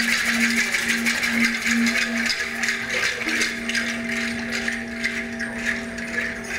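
Live percussion: a rattle shaken fast and continuously over a steady low tone that pulses about twice a second at first, then is held from about three seconds in.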